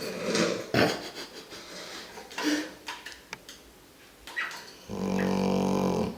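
Labrador retriever snoring in its sleep: a noisy breath out in the first second, quieter breathing, then another long, loud snore with a steady pitch near the end.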